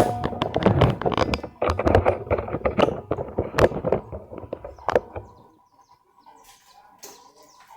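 Handling noise of tools and metal and plastic parts: a quick run of knocks and clatter that stops about five seconds in, leaving only faint background.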